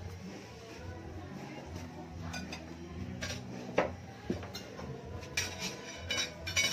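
Spoons and forks clinking and scraping on plates while people eat and serve food. There are a few sharper clinks about four seconds in and a quick run of them near the end.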